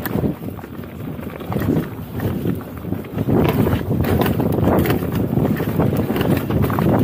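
Mountain bike rolling fast down a dry dirt trail: tyres rumbling over dirt and stones, with rattling knocks from the bike and wind buffeting the microphone. It gets louder about three seconds in as the descent speeds up.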